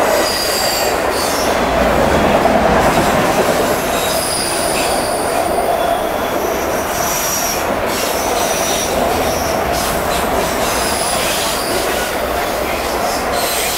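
CSX freight train of autorack cars rolling past at speed: a steady loud rumble and roar of wheels on rail, with many short high-pitched squeals from the wheels coming and going throughout.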